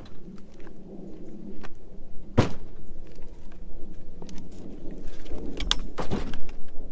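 A few sharp wooden knocks and thuds, firewood logs being handled and set down, over low rumbling handling noise. The loudest knock comes about two and a half seconds in, and a cluster follows near the end.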